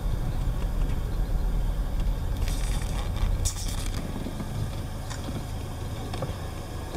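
Low steady rumble of a car running, heard from inside the vehicle, easing off after about four seconds, with a few brief crackles about three seconds in.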